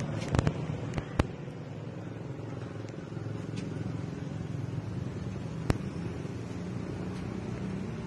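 Construction-site background: a steady low mechanical hum with a few sharp knocks, several in the first second and a louder single one about five and a half seconds in.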